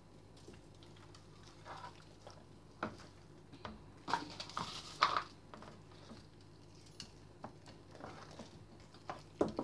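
Hands rubbing and patting Chinese five-spice powder into the skin of a raw whole duck: irregular soft wet squishes and pats, loudest about four to five seconds in.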